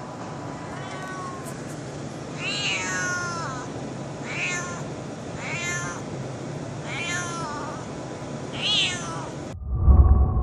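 A cat meowing repeatedly, about six meows each rising then falling in pitch, over a steady background hiss. Near the end the sound cuts off abruptly and a loud low thud follows.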